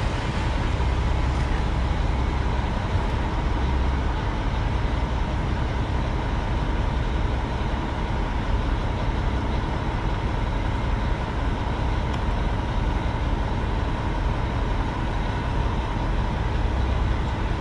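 Steady low drone of an idling heavy diesel truck, with a faint constant whine running through it.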